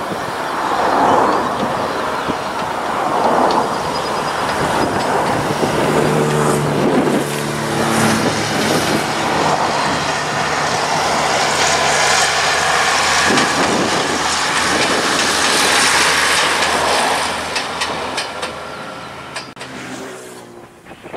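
Class 101 diesel multiple unit passing by on the line: a steady engine drone that stops abruptly about two-thirds of the way through, and wheel clicks as it runs past. The sound dies away near the end as the train moves off.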